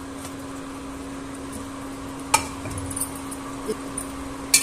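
Kitchen utensils clinking against a pot as boiled vegetables are taken out of a vegetable stock. There is one sharp clink about two seconds in and a quick cluster of clinks near the end, over a steady low hum.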